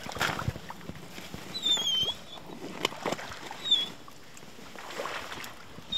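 Hunting dog whining: two short, high, thin falling whines about two seconds apart, over rustling and light knocks of gear being handled.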